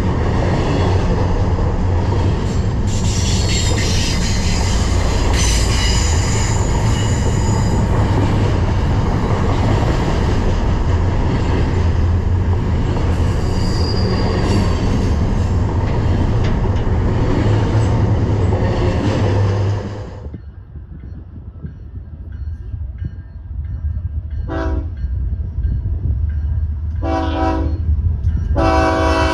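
Freight train running past, rumbling and clattering on the rails with a brief wheel squeal, until the sound drops off suddenly to a quieter rumble. Near the end a diesel locomotive horn sounds a short tap, then a blast, then a longer blast, as a warning to people standing too close to the tracks.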